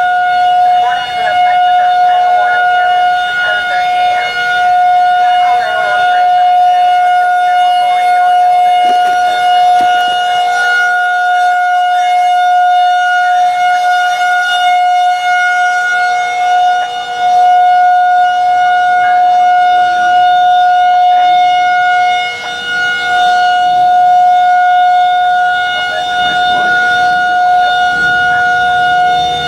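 Federal Signal 2001-SRN outdoor warning siren sounding a loud, steady tone that holds one pitch throughout, with brief dips in loudness near the end. It is the county's weather alert, here sounded for a severe thunderstorm warning.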